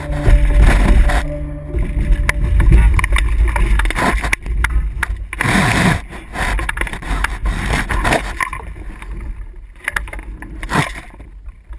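Irregular knocks, thumps and rattles from a RS Q'ba sailing dinghy's hull and fittings as a sailor moves about the boat and handles it in the shallows, with water sloshing against the hull. The sound thins out near the end.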